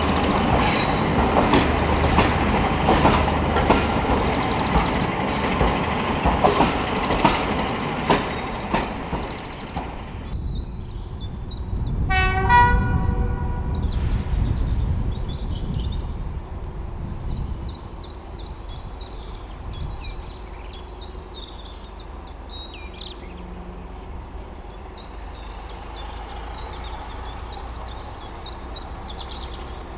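Class 31 diesel locomotive 31430 and its train passing close by, wheels clicking over the rail joints, for about ten seconds. It is followed by one short horn blast a couple of seconds later and a low engine rumble that slowly fades.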